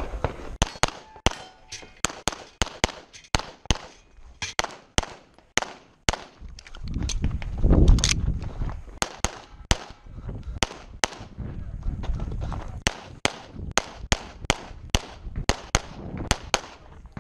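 Rapid pistol shots from a Walther Q5 Steel Frame, fired in quick strings, often in pairs, throughout. There is a short break about six seconds in, filled by a low rumble, before the shooting resumes.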